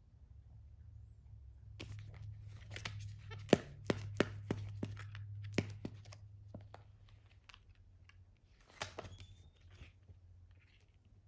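Capuchin monkey handling a hardcover book on a bed: a run of sharp taps and clicks from the book's cover and pages, with rustling of pages and bedding, busiest between about two and six seconds in, then a short clatter again near the end.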